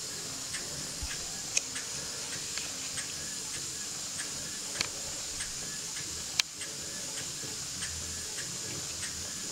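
Model Engineer beam engine running slowly on about 15 psi with the throttle slightly closed: a steady hiss with light, regular ticking from its moving linkage, a little under two ticks a second, three of them sharper clicks.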